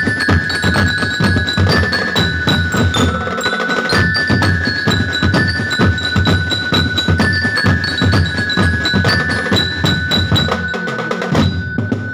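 Drum band playing: bass drums and snare drums beating a steady rhythm under a bright, bell-like melody.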